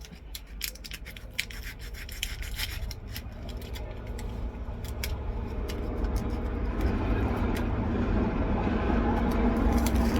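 Small clicks and rubbing from a toy cap gun being handled, then a passing train whose rumble builds steadily through the second half, with a steady hum near the end.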